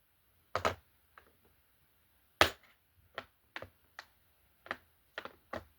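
Hand tools being handled and put away, giving about eight separate sharp knocks and clicks, the loudest about two and a half seconds in and several coming closer together near the end.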